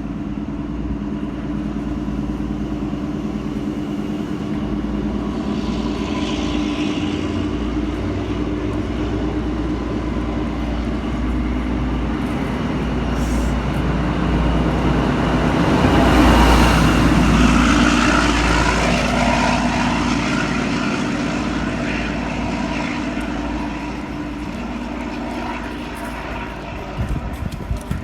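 Diesel train engine drone as a train passes: a steady low hum that grows to its loudest about halfway through, drops slightly in pitch, then fades.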